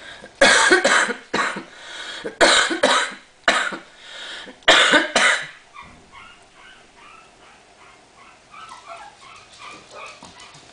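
Four or five loud, harsh cough-like bursts in the first half. After them, many faint short squeaks and whimpers from three-week-old Chihuahua puppies.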